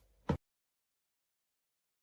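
One short click about a third of a second in, then dead silence.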